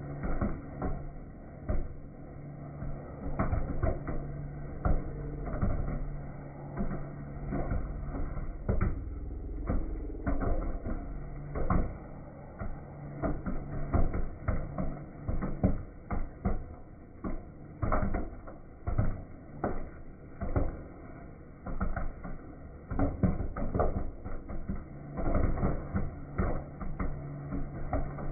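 Popcorn popping in a kettle-style popcorn machine: a dense, irregular run of pops and knocks, over the low hum of the kettle's stirring motor, which comes and goes.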